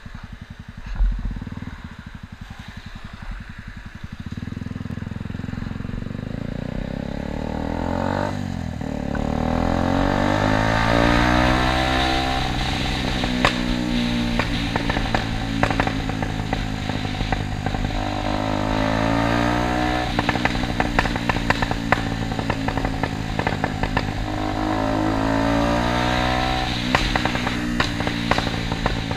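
Yamaha YZF-R125's single-cylinder four-stroke engine breathing through a LeoVince full exhaust system, revving up and falling back several times as the bike accelerates through the gears. Each time the throttle closes, the exhaust pops and crackles on the overrun.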